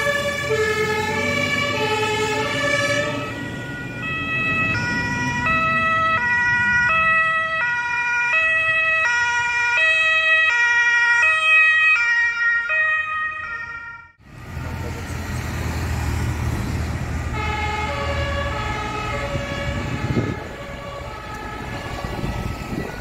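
German two-tone emergency sirens on fire-service vehicles driving past, alternating steadily between two pitches, with a heavy vehicle's engine passing close at the start. About fourteen seconds in, the sound cuts off abruptly. Vehicle engines and road noise follow, with a two-tone siren fainter than before.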